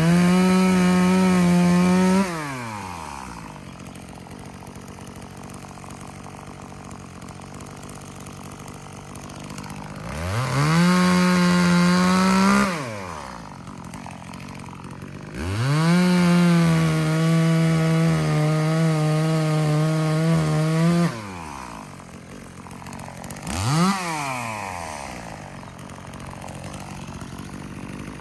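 Chainsaw engine running at full throttle in three bursts, the last about five seconds long with its pitch sagging a little under load, dropping back to idle in between, then a quick blip of the throttle near the end.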